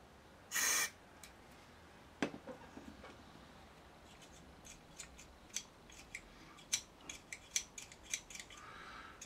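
A short squirt of aerosol switch cleaner about half a second in, then the amplifier's bass control potentiometer being turned back and forth by hand, giving a run of small scratchy clicks. The cleaner is being worked into a dirty, notchy control that had been causing noise.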